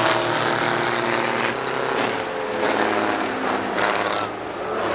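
Several semi trucks' two-stroke Detroit Diesel engines running hard under racing load, with a continuous multi-engine sound whose pitch falls somewhat about halfway through.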